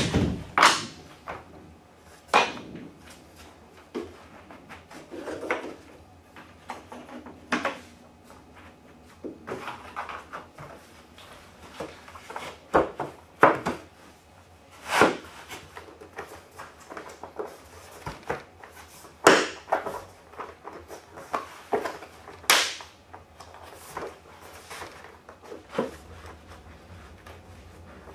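Laminate flooring planks being set down and pressed into their drop-and-lock joints, a string of irregular wooden knocks and clacks with short pauses between them.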